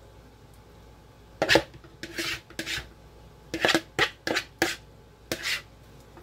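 A spoon scraping thick, creamy chicken pot pie filling around a mixing bowl: a run of about eight short scrapes starting about a second in, each stroke separate.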